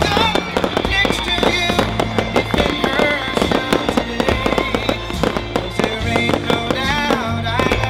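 Fireworks firing in a fast, continuous string of shots and pops, with music playing under them.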